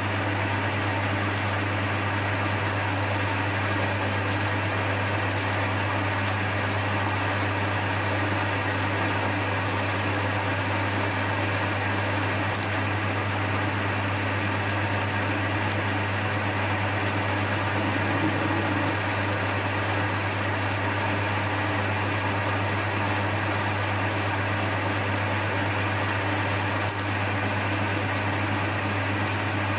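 Small Chinese metal lathe running steadily at about 600 rpm with a constant hum, a TCMT carbide insert taking a fine-feed cut along a salvaged steel bar. The steel is cutting cleanly.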